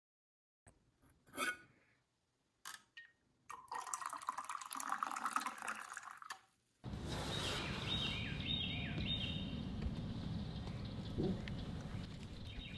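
Coffee poured from a stainless thermal carafe into an insulated tumbler, after a few short knocks and clicks. Then, after a sudden cut, a steady outdoor background with a few bird chirps.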